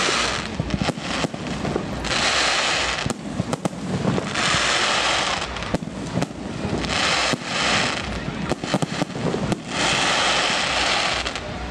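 Aerial firework shells bursting: many sharp bangs in quick succession, with a loud hissing stretch of about a second every two to three seconds.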